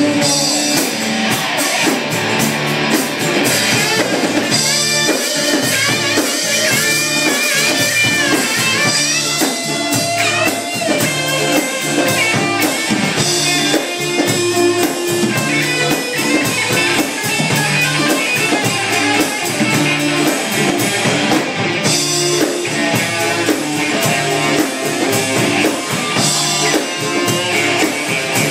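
Live rock band playing: electric guitars over a drum kit, with steady drum hits throughout.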